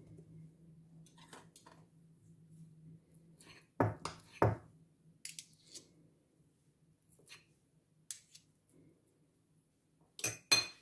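Metal teaspoons clinking and scraping against a bowl and each other while scooping crumbled cheese filling. There are a few sharp knocks about four seconds in and two loud clinks near the end.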